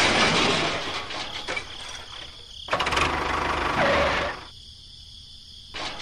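Small engine running, its sound cutting in and out abruptly.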